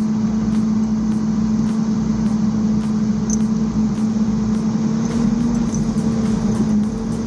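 A heavy machine's engine running steadily at a constant pitch, with a low, even hum.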